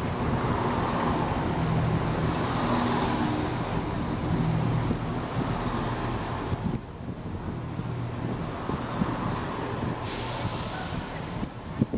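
Chiltern Railways diesel multiple unit passing close by, its underfloor diesel engines running with a low hum. About ten seconds in comes a short hiss of air, and there is a sharp knock just before the end.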